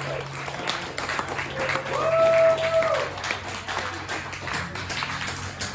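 Audience clapping and applauding at the end of a live jazz tune, with one long held tone rising above the clapping about a second and a half in.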